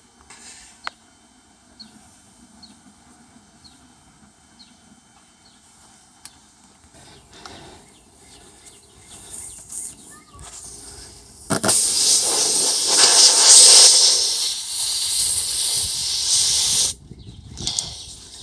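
Compressed air hissing loudly out of a punctured tire through the hole just opened with a reaming tool, for about five seconds before cutting off suddenly. Before it, faint scraping and small clicks.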